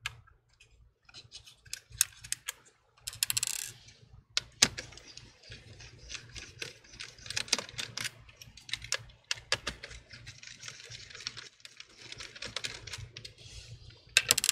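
Irregular small clicks and taps of a precision screwdriver working the laptop's metal hinge screws and of small hardware being handled, with a brief scrape about three and a half seconds in.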